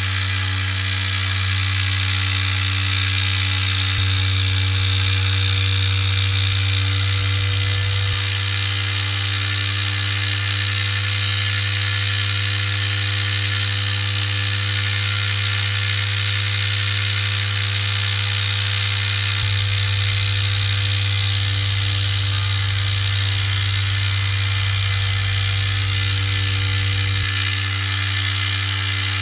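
Homemade transistor pulse motor spinning at about 6,000 rpm. The rotor gives a steady, even whir with a strong low hum.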